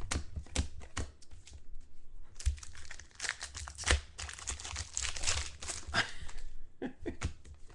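Plastic card-pack wrappers crinkling and tearing as trading-card packs are opened, with scattered light clicks of cards being handled. The crinkling is densest in the middle few seconds.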